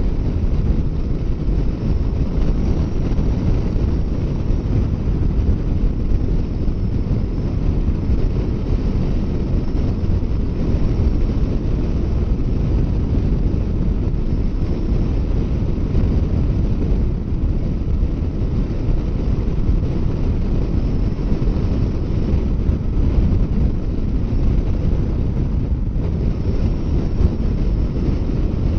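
Steady wind rush over the microphone on a Kawasaki Versys 650 motorcycle ridden at highway speed, about 60 mph, with the bike and tyres running beneath it.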